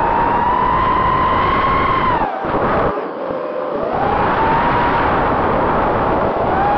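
Emax RS2205 2300KV brushless motors on a ZMR250 racing quad, spinning DAL 5045 bullnose props, heard from the quad's onboard camera: a steady whine over wind rush. A little over two seconds in, the whine drops away as the throttle is cut and wind noise takes over; about four seconds in it climbs back up as the throttle comes back on.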